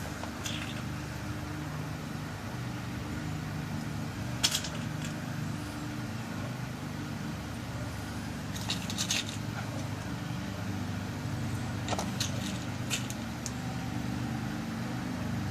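Small metal lock pins clicking as they are dropped into a pin-tumbler lock cylinder during rekeying: a few scattered sharp ticks, a cluster near the middle and several more near the end, over a steady low hum.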